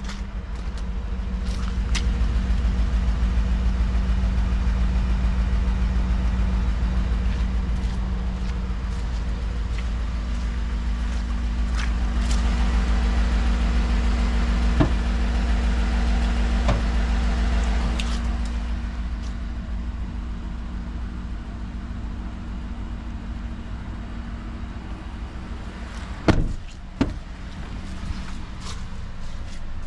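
Ford F150 pickup's engine idling steadily, louder for a stretch in the middle. A few sharp knocks near the end.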